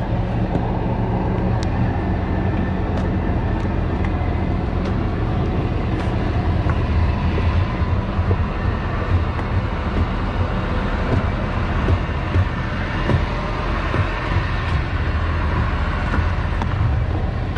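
Fishing boat's engine running steadily, a low continuous drone, with a few light clicks over it.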